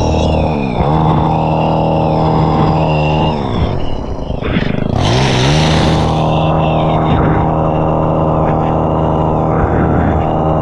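Motorised pole hedge trimmer's small engine running at high revs while cutting a ficus hedge, dipping in pitch about four seconds in and revving back up, with a short burst of hiss about a second later.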